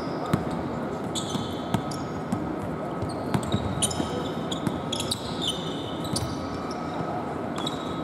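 Basketball being dribbled on a hardwood court, with sharp ball bounces and bursts of high sneaker squeaks as players cut and stop during live play.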